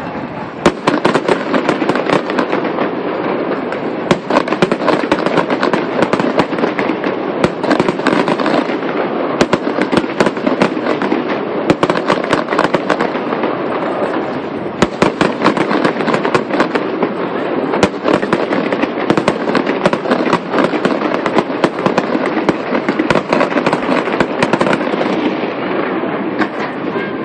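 Fireworks display going off in a dense, rapid barrage of bangs and crackling, with a few sharper bangs standing out above the steady crackle.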